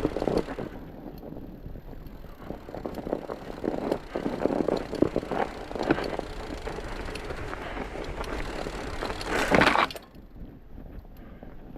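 Fat bike on chained tyres riding over roots and snow: irregular crunching with scattered knocks and rattles, the loudest burst about nine and a half seconds in, after which it goes quieter.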